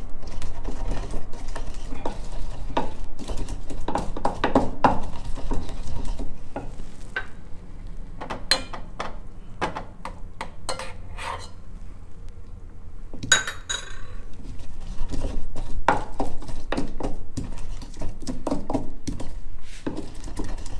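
Wooden pestle pounding king chilies into a paste in a wooden mortar: a rapid run of dull knocks. About a third of the way in the pounding stops for several seconds, leaving only a few scattered clinks. It starts up again about three-quarters of the way through.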